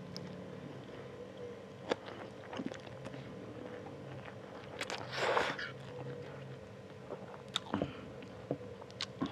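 Close-miked eating of spicy fried instant noodles: chewing with a few sharp clicks, and one loud slurp about five seconds in as a forkful of noodles is sucked in.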